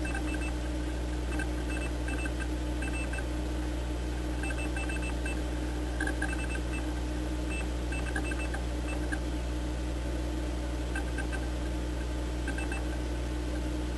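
Steady low electrical hum with a constant faint tone, flecked throughout with clusters of short, faint, high-pitched blips.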